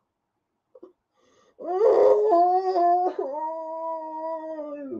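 A woman's long, wordless moan of despair, starting about a second and a half in, loudest at first, wavering briefly around three seconds in and then held steady, sinking slightly before it stops.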